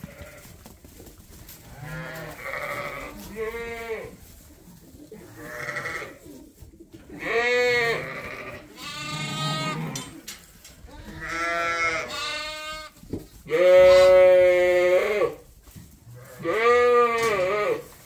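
Sheep and young lambs bleating in a series of separate calls, one every second or two. The longest and loudest call comes about three-quarters of the way through.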